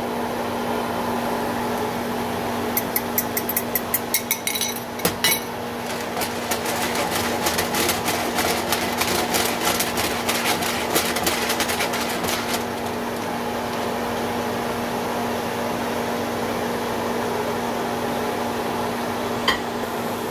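Beaten eggs going into a hot pan of sautéed bell peppers and ham: a run of sharp clicks from a fork scraping the egg out of the bowl, then a dense crackling sizzle that settles to a steady sizzle as the omelette cooks. A steady low hum runs underneath.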